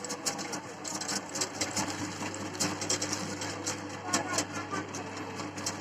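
Electric meat grinder running with a steady motor hum while crunchy Kurkure corn snacks are crushed in it, giving many irregular sharp crackling clicks.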